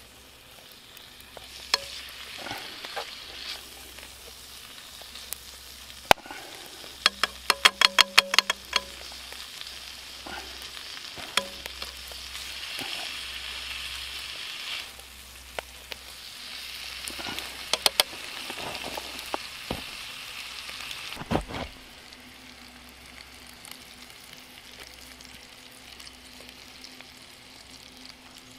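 Shaved ribeye steak frying in a pan, sizzling steadily as it is stirred, with a quick run of sharp clicks about a quarter of the way in and a few more taps later. The sizzle is loudest through the middle and drops lower after a knock about three quarters of the way through.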